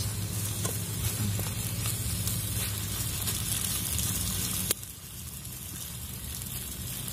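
Wild mushrooms sizzling as they fry, a steady hiss with small crackles. A sharp click comes a little past halfway, after which the sizzle is quieter.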